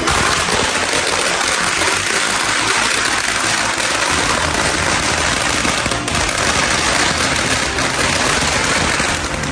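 A long string of firecrackers going off: a rapid, unbroken crackle of sharp bangs.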